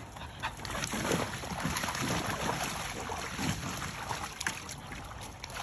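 Water splashing and sloshing in a swimming pool, irregular and noisy with scattered small slaps.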